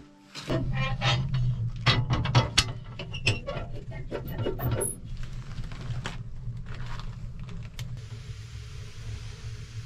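Metal clanks and knocks from a small sheet-metal wood stove's door and the firewood inside it being handled, many in quick succession through the first five seconds. A steady low rumble runs underneath, and the knocks then give way to a steady hiss.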